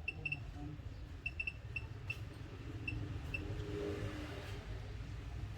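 Short, high electronic chirps at one pitch in irregular clusters for the first few seconds, over a low steady hum.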